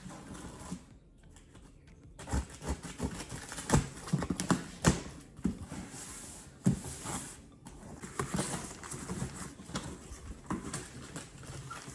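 A cardboard meal-kit box being opened by hand: scissors cut it open and the flaps are pulled back. Starting about two seconds in there is an irregular run of scrapes, rustles and knocks from the cardboard.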